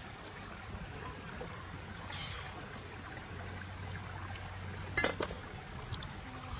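A single sharp clink about five seconds in, against a low steady hum.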